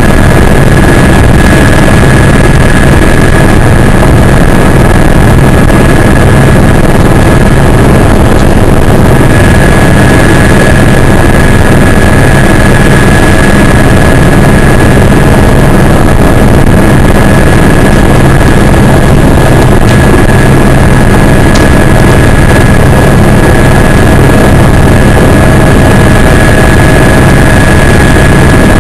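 Helicopter running steadily: constant loud engine and rotor noise with a steady high-pitched whine over a low rumble.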